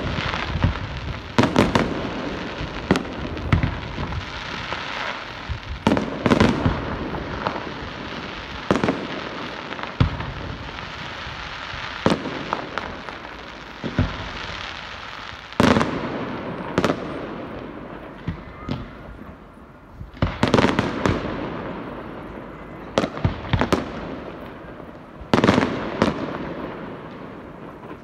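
Fireworks display: aerial shells bursting one after another, with many sharp loud bangs, some in quick clusters, and echoes trailing off between them.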